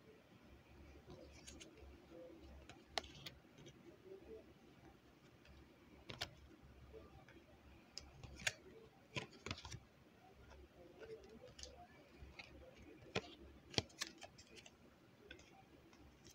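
Scattered light clicks and taps of tarot cards being handled and stood on a small wooden easel, irregular and spaced a second or more apart, over a faint low hum.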